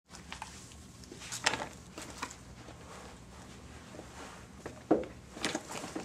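A few light clicks and knocks, scattered and irregular, over a low steady hum.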